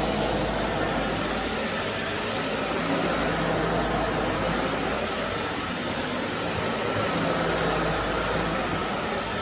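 Vacuum cleaner running steadily, a constant rushing noise with a low motor hum underneath.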